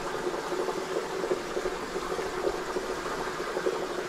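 Steady bubbling and running water from a bait tank's aerator.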